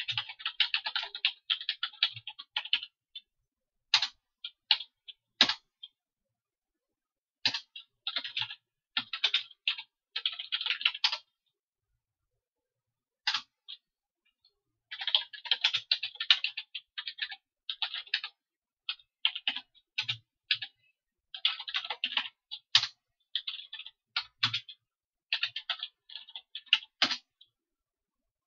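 Computer keyboard typing in quick runs of keystrokes, broken by short pauses, with a few single keystrokes in between.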